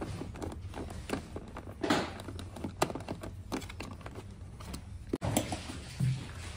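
Scattered light clicks and knocks of hands and tools handling scooter parts while the seat is being taken off, over a steady low hum.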